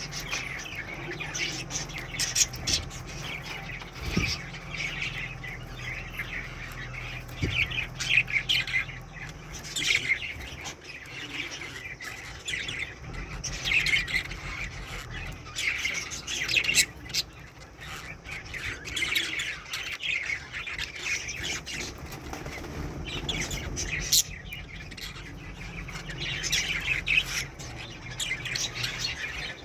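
Pet budgerigars chattering, with repeated bursts of squawks and chirps.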